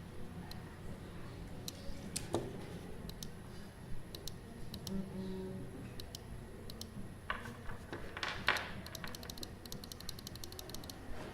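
Small office ambience: a steady low hum with scattered clicks, two short scuffing noises about three-quarters of the way through, then a fast run of computer keyboard typing.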